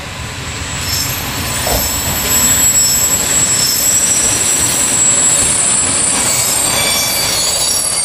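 Passenger train rolling into a station, its coaches passing close by. The sound grows louder over the first two seconds, with a high-pitched squeal from its wheels and brakes over the rumble of the wheels.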